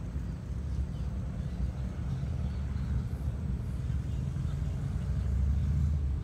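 Low steady outdoor rumble that swells about five seconds in.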